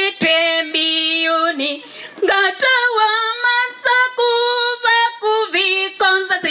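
Women singing a gospel hymn together in long held notes, with a lead voice on a microphone, and a short break between phrases about two seconds in.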